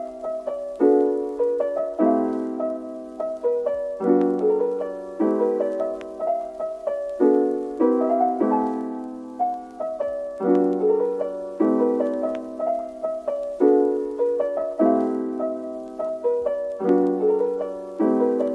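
Background piano music: chords struck about once a second, each note fading before the next.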